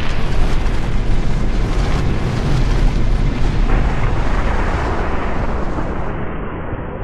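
Cinematic sound effect for an animated logo reveal: a deep, explosion-like rumble with a noisy whoosh of debris that fades slowly toward the end.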